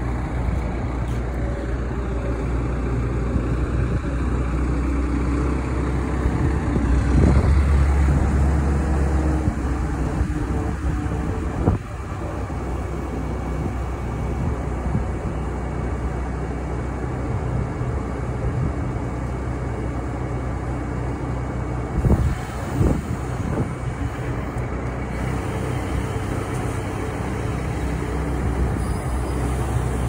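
A Merlo Roto 50.30S Plus telehandler's diesel engine runs steadily while its hydraulic outriggers extend and lift the machine off its wheels. The engine grows louder under load about seven seconds in, and there are a few sharp knocks later on.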